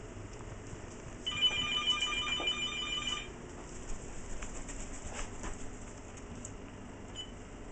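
Cordless telephone ringing: one rapidly trilling electronic ring about two seconds long, starting about a second in, followed by faint knocks and rustling.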